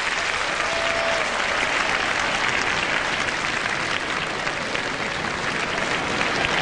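Large arena crowd applauding steadily at the end of a skater's program.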